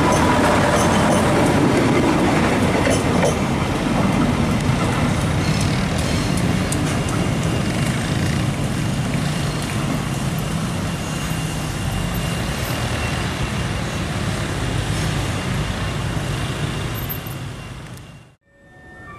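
Passenger train coaches rolling past close by, a steady rumble of wheels on the rails with scattered clicks. The sound slowly weakens and dies away shortly before the end.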